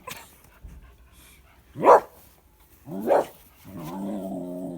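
A dog barking at a cat it has spotted: two sharp barks about a second apart, then a drawn-out, steady-pitched cry near the end.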